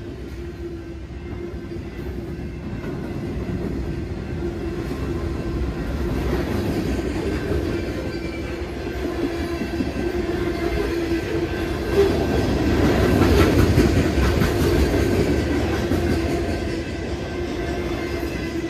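A diesel freight train rolling past at close range. The trailing locomotives give way to tank cars, covered hoppers and double-stack container cars, their wheels running continuously over the rails. The noise swells louder about twelve seconds in.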